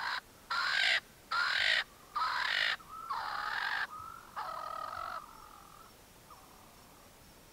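Swainson's francolin (Swainson's spurfowl) calling: a series of about six loud, harsh notes, each about half a second long and evenly spaced, growing quieter. Two faint notes follow near the end.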